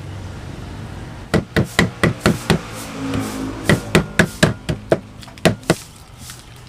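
A kitchen knife striking lemongrass stalks on a wooden chopping board: three quick runs of sharp knocks, about four a second, with short pauses between them.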